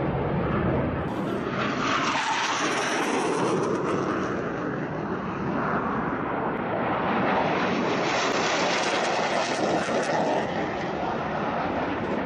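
Jet engine roar of a low-flying military jet passing close, loud throughout and swelling again later on.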